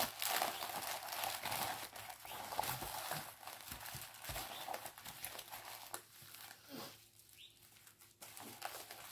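Packaging of a diamond painting kit crinkling and rustling as it is handled. It is loudest over the first few seconds, then thins to faint, scattered rustles.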